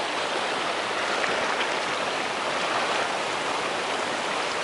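Steady rush of fast river rapids, shallow water pouring over and around rocks.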